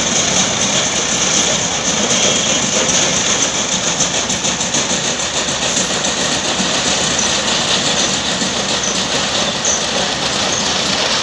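Machinery running steadily, an engine-driven noise without breaks.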